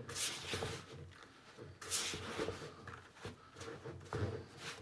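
Silicone spatula scraping and rubbing through crumbly cookie dough against the side of a mixing bowl, in a few separate strokes: near the start, about two seconds in, and near the end, as flour is folded in.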